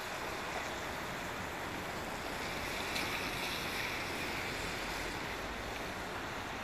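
Steady rain falling on a wet road, an even hiss that swells slightly about three seconds in.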